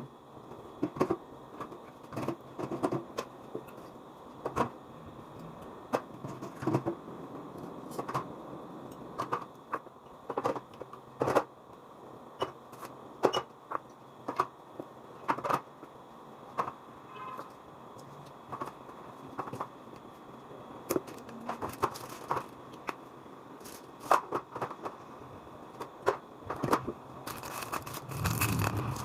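Items being handled while a fridge is cleaned: irregular light clicks, knocks and scrapes, a few every second or two, over a faint steady background.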